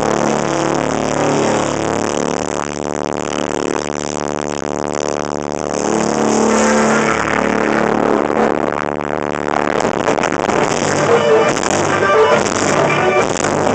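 Rock band playing live: distorted electric guitar holding loud chords over drums, with the drums and cymbals hitting harder from about ten seconds in.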